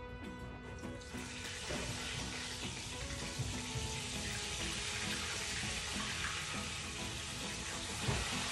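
Food sizzling in hot oil in a wok, starting suddenly about a second in and then holding steady.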